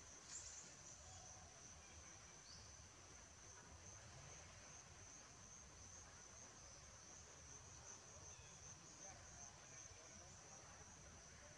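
Faint, steady high-pitched insect chirring.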